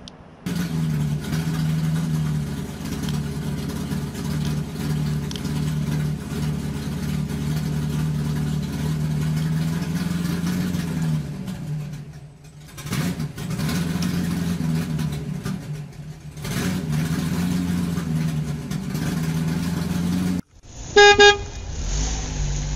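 A low, steady vehicle-engine sound effect with a slightly wavering pitch, dipping briefly twice. Near the end it cuts off and a short, loud horn toot follows.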